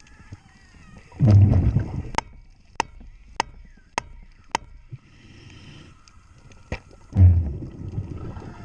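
Underwater, a scuba diver's exhaled breath bursts out of the regulator as a low bubbling rumble twice, about six seconds apart. Between the breaths come five sharp clicks, evenly spaced about half a second apart.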